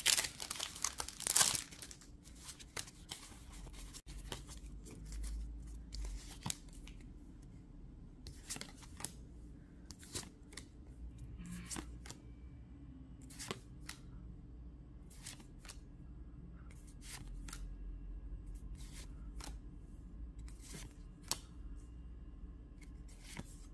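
Plastic foil booster-pack wrapper tearing open in a couple of loud crinkly rips, followed by scattered soft swishes and clicks as trading cards are slid and flipped one by one.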